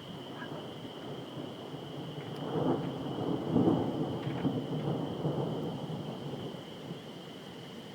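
Rolling thunder: a low rumble that swells about two seconds in, is loudest near the middle, then fades away over the next few seconds.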